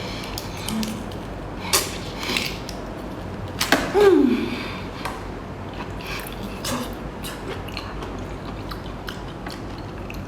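Close mouth sounds of someone sucking and chewing the meat out of a tiger prawn: scattered wet smacks and clicks, with a louder slurp about four seconds in.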